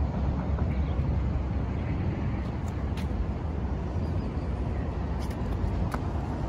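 Outdoor background noise: a steady, low rumble with no distinct events, apart from a few faint clicks.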